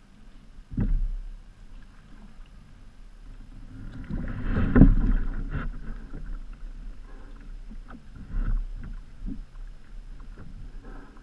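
Water splashing and sloshing against a sea kayak's hull, picked up by a camera mounted on the front deck, with irregular splashes and knocks. A sharp splash comes about a second in, the loudest splashing about five seconds in as the kayak is leaned over onto its side, and another near the end.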